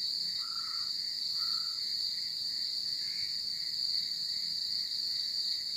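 Steady high-pitched chirring of crickets at night, with two short whistle-like calls about half a second and a second and a half in, which are taken for a bird.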